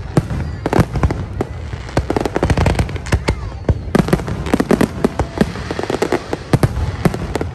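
Aerial fireworks display: a rapid, uneven barrage of shell bursts, many sharp bangs and crackles close together over a continuous low rumble.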